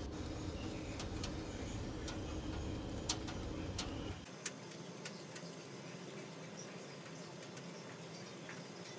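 Rotisserie oven running with a steady low hum, and scattered sharp ticks and pops as the beef kebab roasts on the turning spit. The hum drops away about four seconds in.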